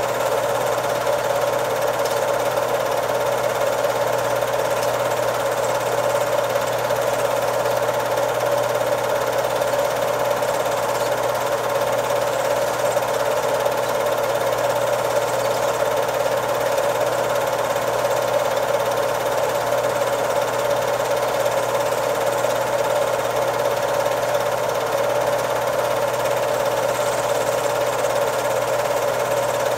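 Home-movie film projector running, its motor and film-advance mechanism making a steady, even mechanical whir over a constant low hum.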